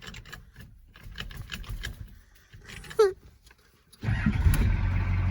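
Ford 6.9 IDI V8 diesel cranking on a newly fitted starter and firing up almost at once, about four seconds in, then running with a steady low rumble. Before it, faint clicks and a short squeak.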